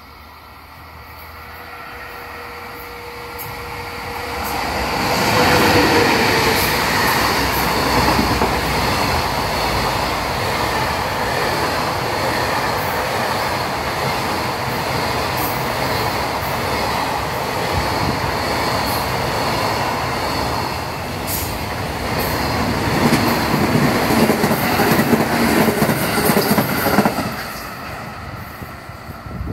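Long JR Freight container train of Koki 106 flat wagons passing close by. The sound builds over the first five seconds, stays loud as the wagons go past, and falls away near the end.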